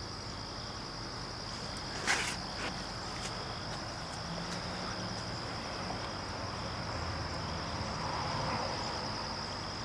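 Crickets chirping in a steady high-pitched trill, with a single brief knock about two seconds in.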